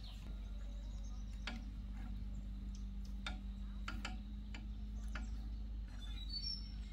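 Irregular sharp clicks and taps, roughly one or two a second, over a steady low hum; a short high bird chirp near the end.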